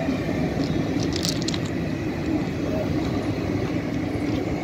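Indian Railways passenger coaches rolling past close by: a steady rumble of wheels on rail, with a few sharp clicks a little over a second in.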